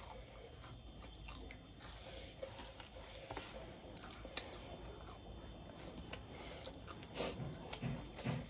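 Faint close-up chewing of food, with scattered short crisp clicks and crunches.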